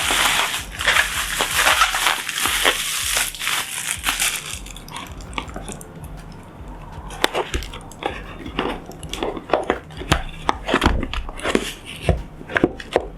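Product packaging being opened by hand: several seconds of tearing and crinkling, then scattered clicks and light knocks as the box and its contents are handled.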